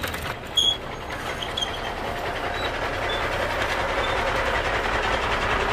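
Plastic wheels of a Bruder Mack toy dump truck rolling and grinding over gritty asphalt as it is pushed along by hand, a steady rough rumble that grows a little louder.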